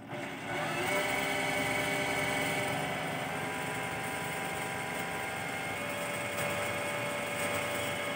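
Singer high-speed industrial sewing machine driven by a Yuasa servo motor set to 1500 rpm, starting from the pedal about half a second in and running steadily with an even machine whine.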